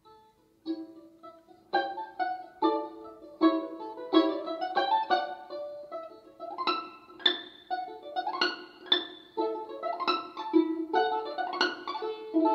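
Balalaika music, a lively concert piece on Russian folk-song themes: quick plucked notes over a steady repeated low note, building several times into fast rising runs.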